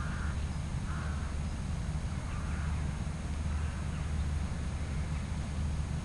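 Outdoor ambience: a steady low rumble, with faint short animal calls repeating roughly every second or so.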